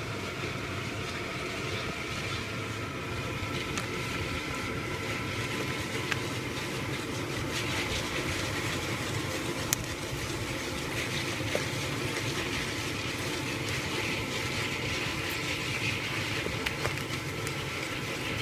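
Kettle corn kernels starting to pop in the kettle: a few scattered sharp pops over a steady rushing noise from the lit kettle burner.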